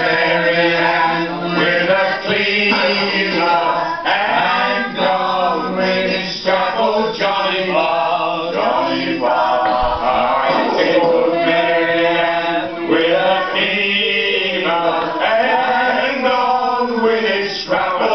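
Voices singing, a man's among them: an unaccompanied, chant-like song with many held notes.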